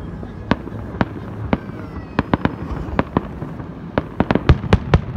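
Aerial fireworks going off: a dozen or more sharp bangs at irregular intervals over a steady low background rumble, coming thicker and louder in the last second or so.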